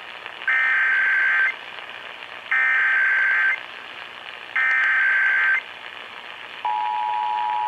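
Emergency Alert System tones over a radio broadcast: three one-second bursts of the digital SAME header data, about two seconds apart, then about two-thirds of the way through the steady two-tone attention signal begins, all over a steady hiss of radio reception. The tones mark the start of a Required Monthly Test activation.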